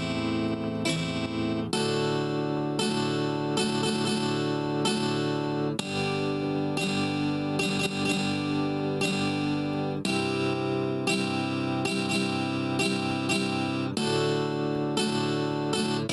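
Background music led by strummed acoustic guitar, with chords changing every second or two.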